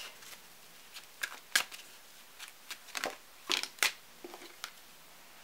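Tarot cards being handled: cards slid off the deck and laid down onto the spread, making several short card snaps and soft rustles spread over a few seconds.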